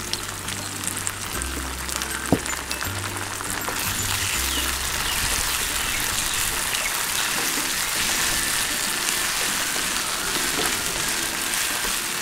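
Green peas and onions with steak sauce sizzling in a frying pan as they are stirred with a spatula. The sizzle grows louder about four seconds in, over background music whose bass line drops out at the same point. There is one sharp click a couple of seconds in.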